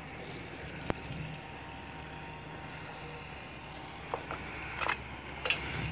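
Steady low outdoor rumble, with one sharp click about a second in and a few light clicks later on as the pull-tab lid of a metal food can is worked open.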